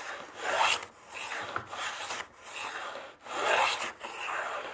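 Wooden hollow moulding plane taking light shavings off a pine shelf board in short strokes, roughly one a second, cutting the start of a shallow round-bottomed channel.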